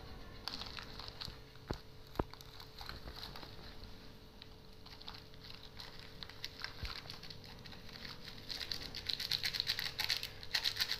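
Chocolate sprinkles shaken from a plastic bag pattering onto a plate, with the bag crinkling; the rapid patter gets denser and louder near the end. Two light clicks about two seconds in.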